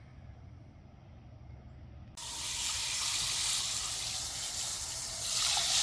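Water running and splashing into a concrete bird bath. It starts suddenly about two seconds in and grows louder near the end.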